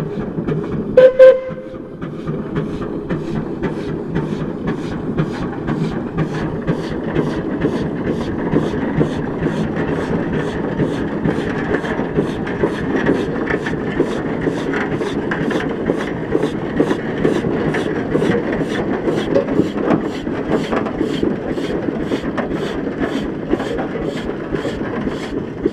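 1910 Minneapolis 22hp steam traction engine running, its exhaust chuffing in a steady beat of about two a second. About a second in, its steam whistle gives one short, loud toot.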